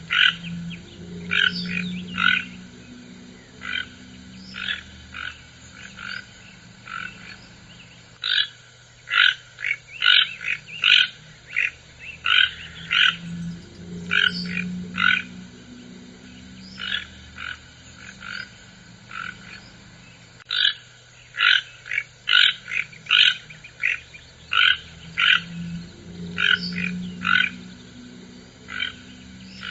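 Toucan croaking: short, rasping notes repeated in quick runs of about two or three a second, with brief pauses between runs.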